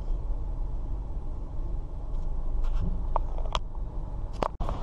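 Car cabin noise as the car rolls slowly: a steady low engine and road rumble, with a few short sharp clicks in the second half.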